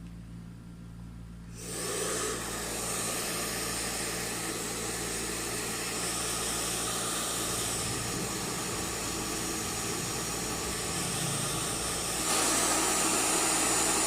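NV-899 Nova hand-held hair dryer switched on about a second and a half in, its fan blowing a steady hiss of air, then stepping up louder about twelve seconds in.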